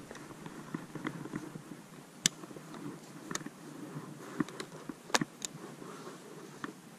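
A Winchester 37A single-shot break-action shotgun being handled: soft rustling of clothing and dry leaves with a few sharp clicks as the action is broken open and then snapped shut about five seconds in.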